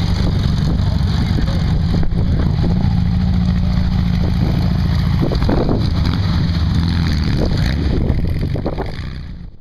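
Air-cooled Volkswagen flat-four engine of a Baja Bug running as the car drives on dirt, a steady low drone with the revs lifting slightly a few seconds in. It fades out near the end.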